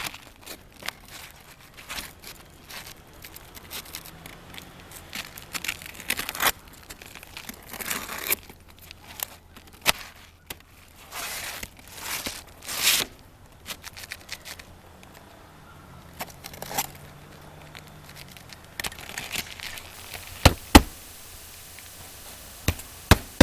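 Asphalt shingles being handled and worked into place, with irregular rustling, scraping and tearing. Near the end, four sharp nailing strikes as the shingles are fastened down.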